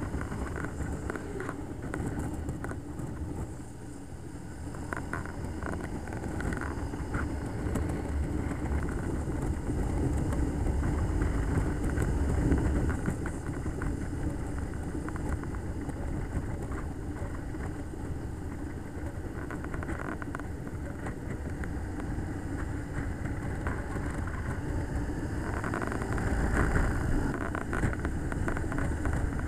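Road vehicles passing: a low rumble that builds slowly to a peak about ten seconds in, fades, and rises again near the end.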